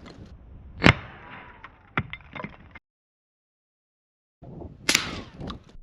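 Two shots from a suppressed CVA Scout 300 Blackout pistol fired at steel targets, about four seconds apart. Each is a short, sharp crack followed by a brief ring and a few small clicks. The sound drops out completely for about a second and a half between them.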